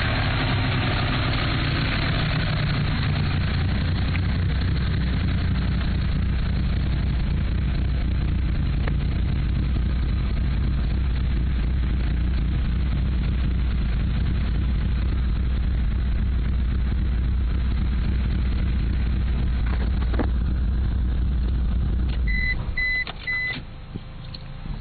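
Mitsubishi Lancer Evolution III's turbocharged 2.0-litre four-cylinder engine idling roughly, a rough idle the owner suspects comes from bent valves. About 22 seconds in the engine stops, followed by three short high beeps.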